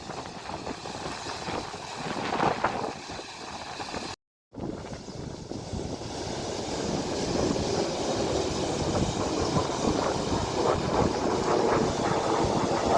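Wind buffeting the microphone over a steady outdoor rushing noise, breaking off completely for a moment about four seconds in.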